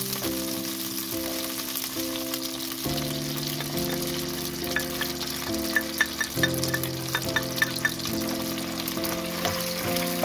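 Oil sizzling steadily in a non-stick frying pan with dried fruit in it. From about five to eight seconds in, a quick run of sharp clicks and scrapes comes as paste is scraped into the pan and stirred with a spatula. Background music with sustained notes plays throughout.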